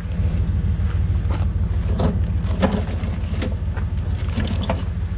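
A van's engine idling steadily, with a few light knocks and clicks over it as the mower is handled at the open rear doors.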